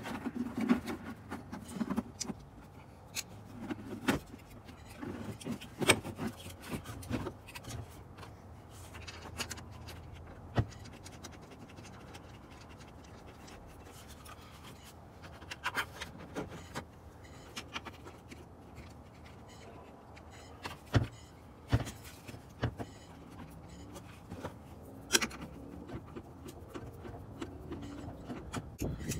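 Hands working on an ARB twin air compressor's wiring harness and harness box: scattered clicks, taps and light scraping as plugs are connected and small screws refitted.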